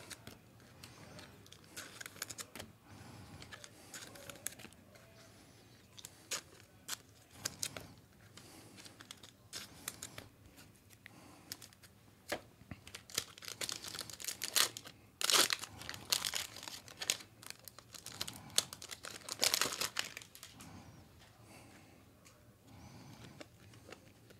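Crinkling and tearing of foil trading-card pack wrappers as basketball card packs are opened and handled, in irregular short bursts.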